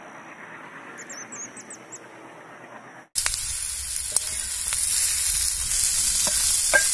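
For about three seconds, a few high, thin, upward-gliding chirps from nestling birds begging when their nest is touched. Then the sound switches abruptly to stuffed okra sizzling in oil on a flat black iron pan, with the wooden spatula scraping and tapping on the pan several times as the okra is stirred.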